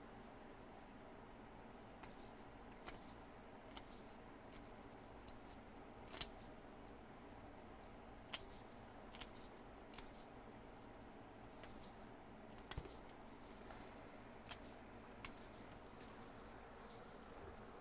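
Craft knife trimming the corners off wooden popsicle sticks: irregular small clicks and scrapes of the blade cutting through the thin wood, over a faint steady hum.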